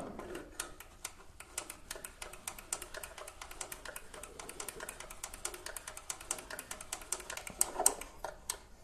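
Hex key being turned in a motorcycle chain-adjuster screw: a long run of light, quick, fairly even clicks, several a second, with a few louder clicks near the end.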